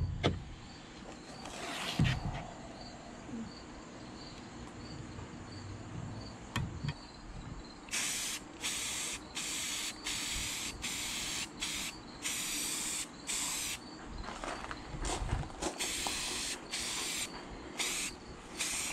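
Aerosol spray can of Tremclad flat black rust paint hissing in about a dozen short bursts over the second half, as paint is sprayed onto a steel roofing spade. One sharp knock about two seconds in.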